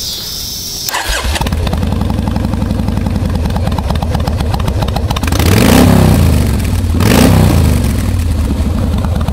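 Kawasaki Mean Streak's V-twin, on Vance & Hines Straight Shots straight pipes, being started: the starter whirs for about a second, then the engine catches and idles loud and lumpy. It is revved twice past the middle, each rev rising and falling.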